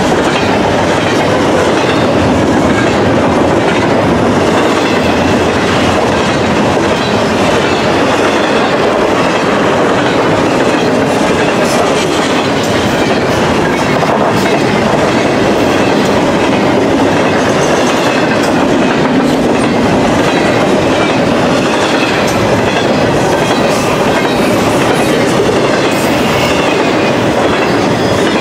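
Double-stack intermodal freight train rolling past close by: a loud, steady rumble of steel wheels and well cars on the rails, with scattered clicks throughout.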